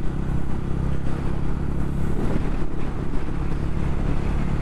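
TVS Ronin's 225 cc single-cylinder engine running steadily at highway cruising speed, with wind rushing over the microphone.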